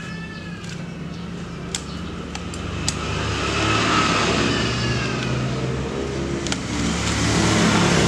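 Road traffic passing: motor vehicle engines running, growing louder from about three seconds in. A few sharp clicks sound on top of it.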